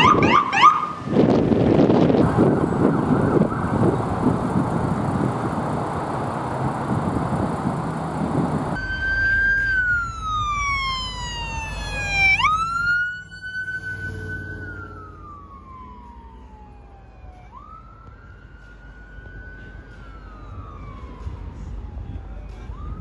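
Ambulance siren: a short burst right at the start, then several seconds of dense road and engine noise with no siren. About 9 s in, an electronic wail comes in, each cycle a slow falling sweep followed by a quick rise, loud at first and growing fainter after about 13 s.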